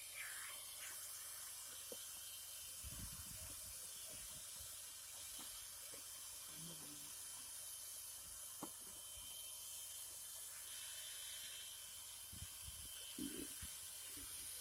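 Steady hiss of a hot-air plastic welder's blower, with a faint steady whine and a few soft knocks.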